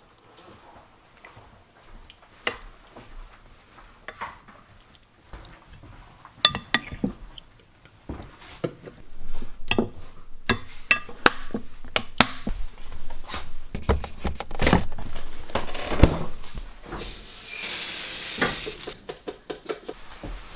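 Hands squishing eel fillets around in a thick marinade in a glass food container, then a metal spoon clinking and scraping against the glass dish in quick irregular strokes. Near the end comes a short rush of running water.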